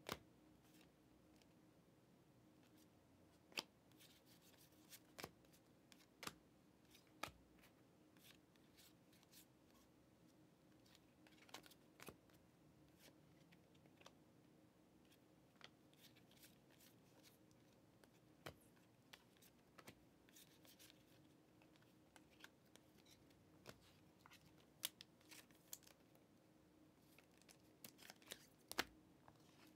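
Trading cards handled in a stack, slid and flicked over one another one at a time, giving scattered sharp clicks over a faint steady hum.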